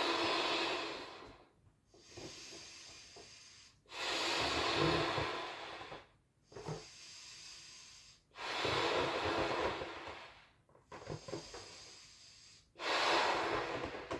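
A person blowing up a pink latex balloon by mouth: four long, loud breaths into it, each about two seconds, with quieter breaths drawn in between.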